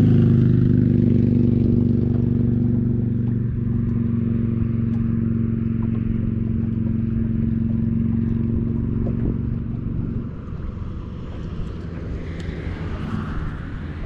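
Bass boat's outboard motor running at a steady speed, then dropping away about ten seconds in, leaving the rush of water and wind.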